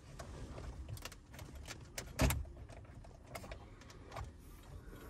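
Scattered plastic clicks and knocks as the climate-control panel of a 2012 Toyota Tundra is worked loose from the dash by hand, with the loudest knock about two seconds in.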